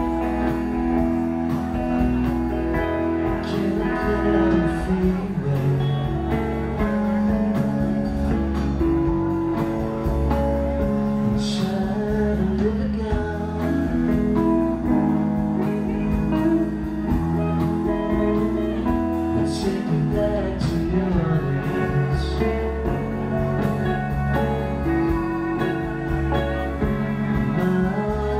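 Live band playing amplified music on electric guitars, bass guitar, drums, keyboards and violin, at a steady, loud level.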